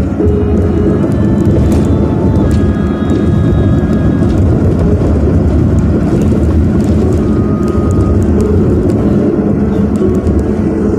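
Steady rumble of a car driving along, heard from inside the cabin: engine and road noise, with no clear change throughout.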